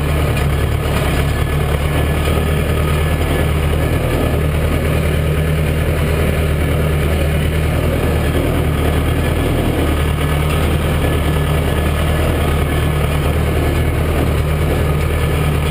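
Massey Ferguson 590 tractor's four-cylinder Perkins diesel engine running steadily while the tractor drives along, loud because the cab has no windows.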